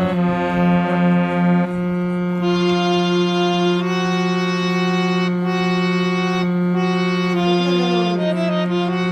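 Harmonium being played: a low note is held throughout while higher notes change above it.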